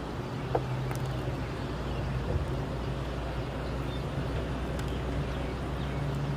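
A steady low engine drone, running evenly, with a few faint clicks over it.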